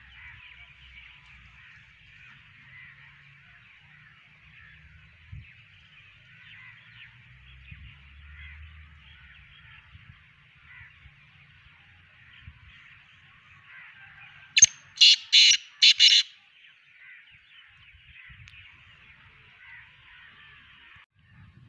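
Black francolin calling: four loud, harsh notes in quick succession a little over halfway through, over a faint steady high-pitched hiss.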